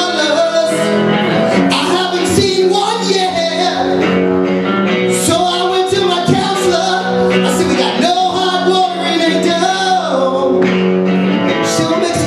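A man singing into a microphone over live guitar accompaniment, holding long notes that waver in pitch.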